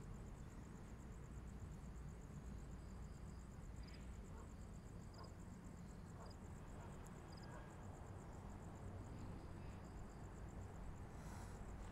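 Faint night ambience of insects, likely crickets, chirring in a steady, fast-pulsing high trill. A few short chirps sound about a second apart in the middle, over a low, even rumble.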